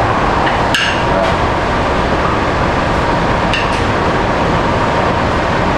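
Steady, loud room rumble with two light clinks of a spoon against a dish, about a second in and again about three and a half seconds in.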